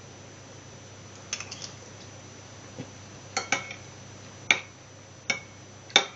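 A metal spoon clinking against a white china soup bowl as it scoops through chunky soup: about half a dozen sharp clinks spread over several seconds.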